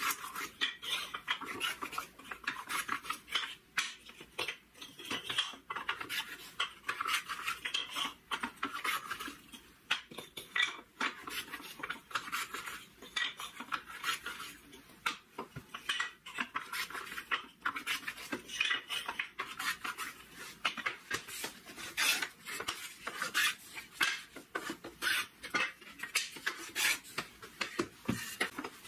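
Small wooden pieces being hand-worked on a workbench: quick, short rubbing strokes mixed with light clacks of wood on wood as pieces are picked up and set down, in an uneven, busy rhythm.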